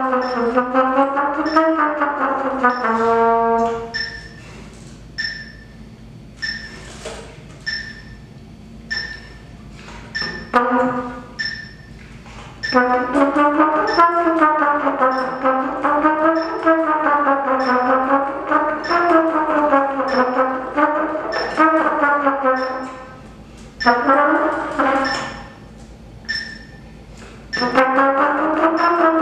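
Trumpet playing lip slurs, the pitch rocking smoothly up and down between neighbouring notes. A held note ends the first phrase. The playing drops to quieter short notes twice before the slurring picks up again.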